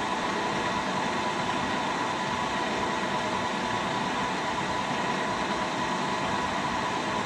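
Vertical milling machine running steadily as a Woodruff keyseat cutter is fed slowly into a one-inch cold-rolled steel shaft. It makes an even hum with a faint steady tone over the noise of the cut. The cutter is an old used one that the machinist takes to be a little dull.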